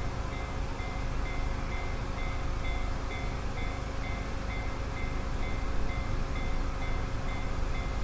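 Japanese level-crossing warning bell ringing in an even, repeating ding about twice a second, signalling that the crossing is closed for an approaching train. A steady low rumble runs underneath.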